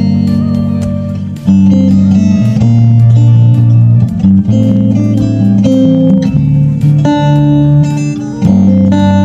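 Acoustic guitar played through a preamp DI box, strumming chords that change about every second.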